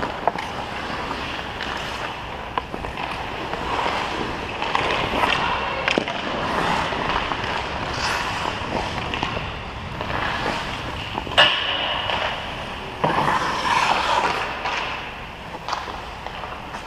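Ice hockey skate blades gliding and carving on rink ice, a continuous scraping hiss that swells with the strides, with a few sharp knocks, the loudest about eleven seconds in.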